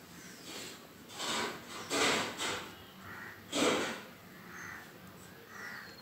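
Crows cawing: about four short, harsh caws in the first four seconds, with fainter calls after.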